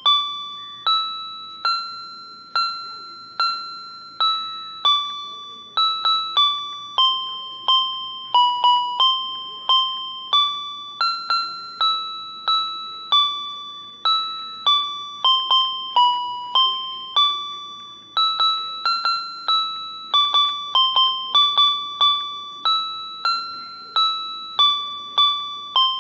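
Background music: a simple melody of single high notes, each struck and fading quickly, at about one to two notes a second, with no accompaniment.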